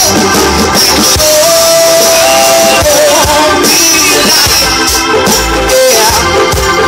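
Live rock band playing loudly: electric guitars, bass and drums, with a singer holding long notes.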